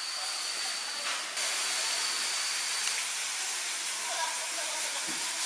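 Steady background hiss with faint, distant voices; the hiss shifts abruptly about one and a half seconds in.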